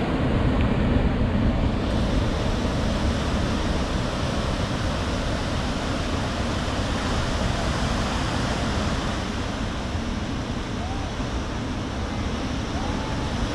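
Ocean surf breaking on the shore as a steady wash of noise, mixed with wind buffeting the microphone.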